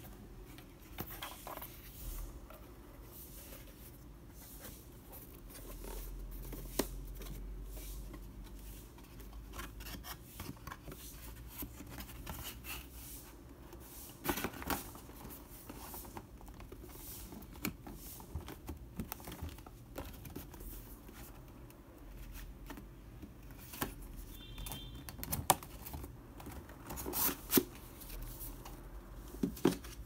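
Rigid cardboard gift box and its printed paper sleeve being handled: card and foam rubbing and sliding, with scattered light taps and clicks, several sharper ones near the end.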